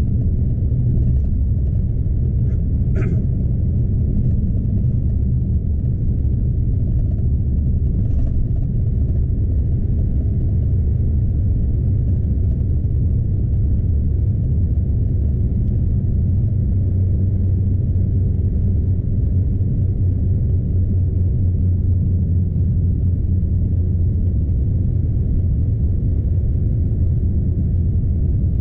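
Steady low rumble of a Scania truck's engine and running gear heard inside the cab while driving, with a faint brief click about three seconds in.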